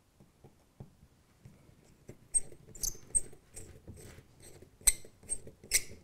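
Small Piko track screw being driven by hand with a precision screwdriver through model railway points into the baseboard: a run of about ten short, high squeaks and clicks as the screw turns and bites, starting about two seconds in.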